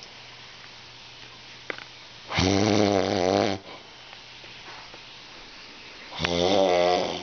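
Snoring: two long, loud snores, each lasting about a second, roughly four seconds apart.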